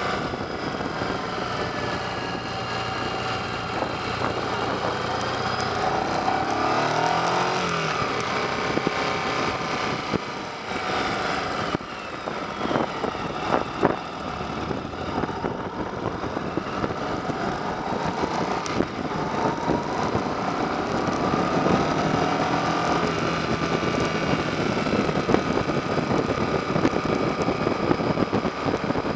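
Yamaha XV750's air-cooled V-twin engine running under way, heard from on the bike, its note rising and falling several times with throttle and gear changes, over a steady rush of riding noise.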